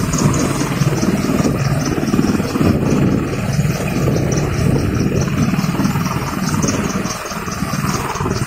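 Helicopter running steadily: a dense, unbroken engine and rotor noise with a fast, regular high pulsing over the top, about four to five beats a second.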